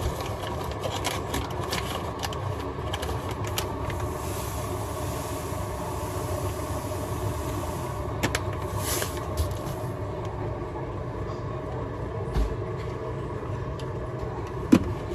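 Keurig coffee maker brewing: a steady pump hum with a hiss in the middle, then a short burst of sound about nine seconds in.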